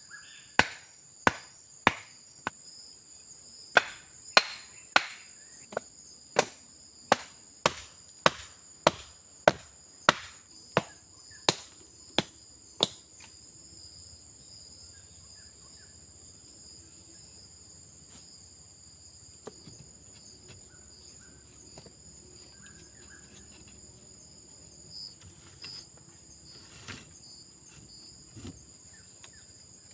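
Repeated chopping blows of a tool on wood, about one and a half a second, stopping about thirteen seconds in. Insects keep up a steady high-pitched chirring throughout.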